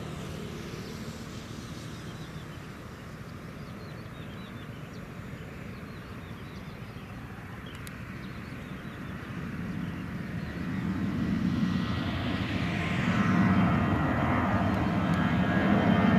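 Twin-engine jet airliner's turbofans getting louder as the plane flies in close overhead. A low rumble swells from about ten seconds in, and a steady high whine joins it near the end.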